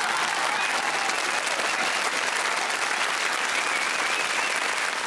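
Studio audience applauding.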